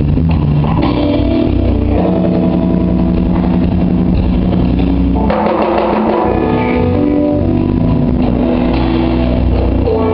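Live jazz-fusion band playing: electric guitar holding long sustained notes over organ and drums. About five seconds in the band swells into a denser, noisier passage.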